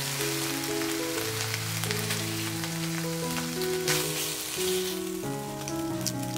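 Thin slices of lean beef eye of round sizzling in a hot frying pan as they are turned and lifted out with wooden chopsticks, a steady crackle with one sharp click about four seconds in. Soft background music of held notes plays along.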